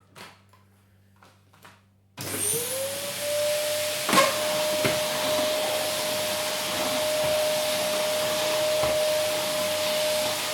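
A few faint clicks, then a vacuum cleaner switches on about two seconds in. Its motor whine rises quickly to a steady high tone over a loud rushing hiss of air. A sharp knock comes about four seconds in.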